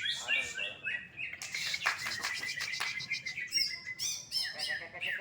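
Cucak ijo (green leafbird) singing fast: runs of short, arched whistled notes repeated several times a second, broken by a dense burst of rapid chattering notes.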